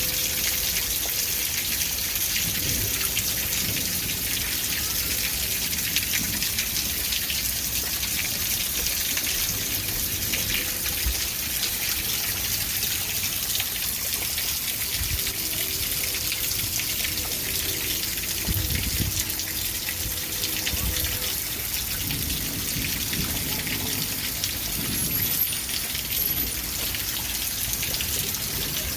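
Steady rain falling, a dense patter of many drops, with low rumbles swelling at times, most strongly about two-thirds of the way through.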